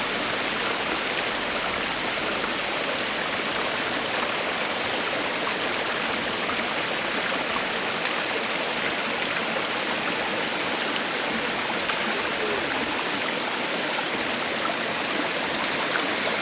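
Waterfall cascading down a rocky mountainside: a steady, unbroken rush of falling water.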